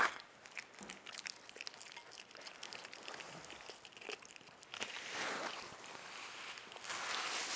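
Capybara chewing cooked sweet potato: soft crunching and smacking clicks, with a sharp click at the start. About five seconds in, a louder rustling noise joins and carries on.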